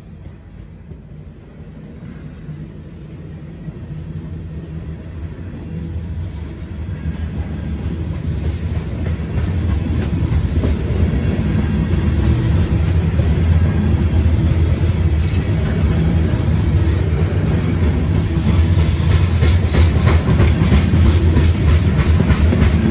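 Freight train's covered hopper cars rolling past: a low rumble of steel wheels on the rails that grows louder over the first ten seconds or so and then holds, with wheel clicks coming through near the end.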